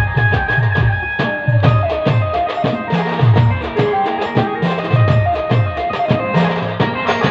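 Band music without vocals: an electronic keyboard plays held notes and a stepping melody over a fast, steady drum rhythm with deep thumping beats.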